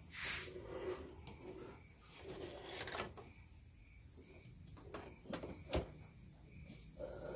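A handful of light clicks and knocks as the plastic oil filter housing and new filter are handled and fitted by hand in the engine bay.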